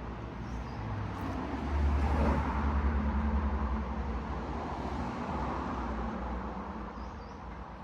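Low background rumble that swells about two seconds in and then slowly fades over the following seconds.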